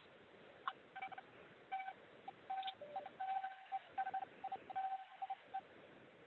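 Electric mixer motor whine, heard over a video call and broken into a string of short, steady-pitched beeps of uneven length.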